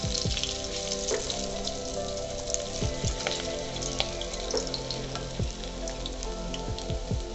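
Helencha saag pakoras crackling and sizzling as they deep-fry in hot oil in a kadai, with a metal spatula scraping and clicking against the pan as they are turned. Background music with held notes runs underneath.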